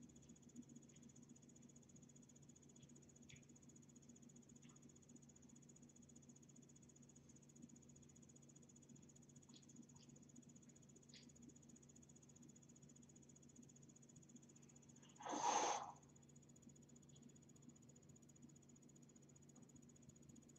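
Near silence: room tone with a steady low hum and a faint high steady whine, broken once about fifteen seconds in by a short noisy puff lasting under a second.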